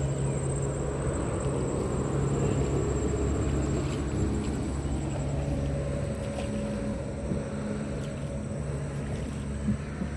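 Small boat's engine running steadily as the boat moves along the water, with a thin, high, steady tone above it. A brief knock comes near the end.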